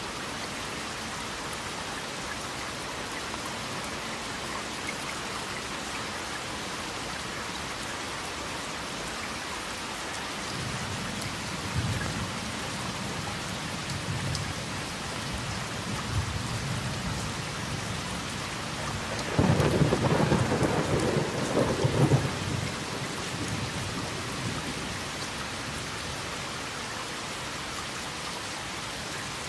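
Steady rain falling, with thunder rumbling low from about a third of the way in and a louder peal of thunder about two thirds in that lasts some three seconds before fading back to rain alone.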